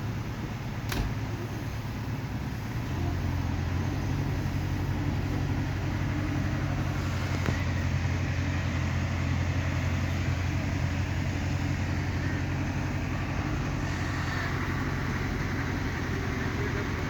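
Excavator's diesel engine running steadily, its low hum growing louder about three seconds in. A single sharp click about a second in.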